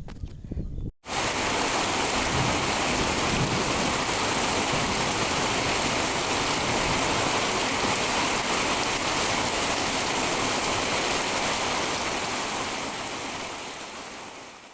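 Heavy rain falling, a dense steady hiss that begins abruptly about a second in and fades out near the end.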